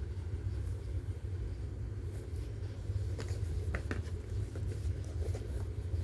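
Steady low background rumble, with a few faint clicks about three to four seconds in and again near the end.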